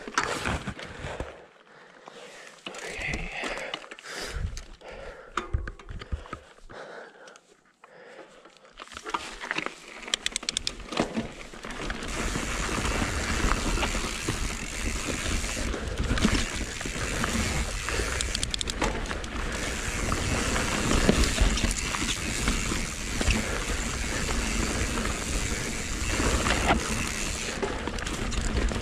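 Mountain bike ridden along a dirt forest singletrack: tyres rolling over the trail, the bike rattling, and wind on the camera microphone, a steady loud rush from about twelve seconds in. Before that, quieter scattered clicks and rustles as the bike moves off slowly.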